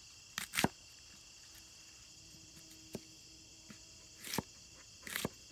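Hatchet blade slicing raw produce on a wooden cutting round: two quick cuts about half a second in, one about four seconds in, and two near the end. A steady high chirring of crickets runs underneath.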